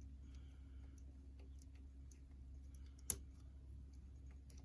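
Faint metallic clicks and scrapes of a wire pick and tension tool working the levers of a 3-lever mortise lock under light tension, with one sharper click about three seconds in.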